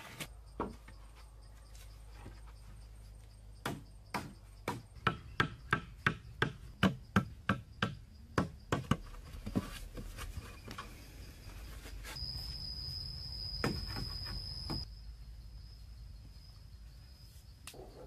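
A machete chopping into a wooden log: a run of sharp strikes, about two a second, most of them in the first half. Later a steady high insect buzz sets in and fades toward the end.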